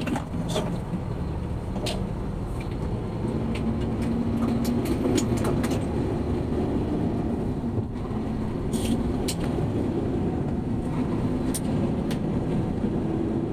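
Scania P360 truck driving, heard from inside the cab: a steady low engine and road drone, with a faint engine tone that strengthens for a couple of seconds a few seconds in, and a few light clicks and rattles.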